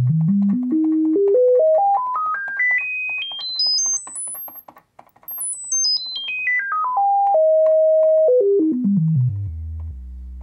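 Pure sine test tone from a signal generator played through an M-Audio AV40 powered studio monitor. It climbs in steps from a low tone to a very high whistle that fades out at the top, then steps back down, holding on a middle tone for about a second before dropping low again. The tone is clean with no buzz, the sign that replacing the amplifier's failed capacitors has cured the hum.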